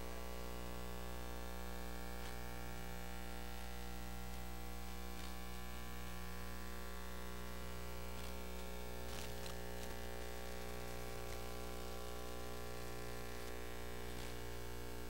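Steady electrical mains hum and buzz on the sound feed, with a few faint clicks about nine seconds in.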